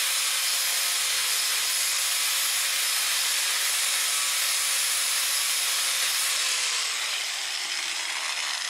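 Angle grinder with a 4½-inch 60-grit flap disc grinding paint off sheet metal down to bare metal, running at a steady pitch. About six seconds in it is switched off and its whine falls as the disc spins down.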